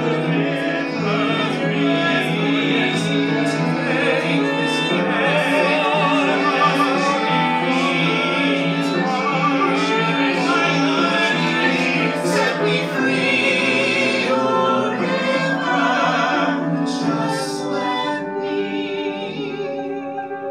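Mixed ensemble of male and female voices singing a musical-theatre song in harmony, with piano accompaniment. The singing thins and gets quieter near the end.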